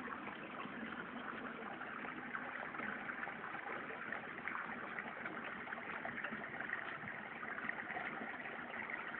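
Stream water flowing over rocks, a steady rushing noise with small splashy ticks.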